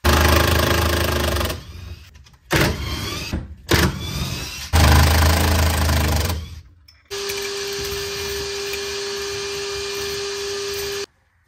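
Handheld power tool, such as a drill-driver, running in bursts: two longer runs and two short ones that spin up in pitch, then a steady run of about four seconds that stops suddenly.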